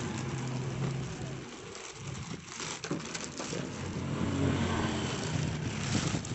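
Clear plastic bag crinkling and rustling as it is pulled off a new audio mixer, over a steady low engine hum.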